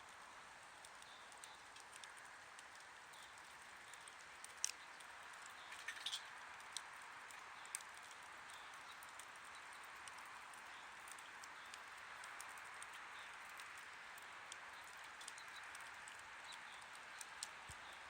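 Wood campfire burning: a faint, steady hiss with scattered sharp crackles and pops, the loudest a few seconds in.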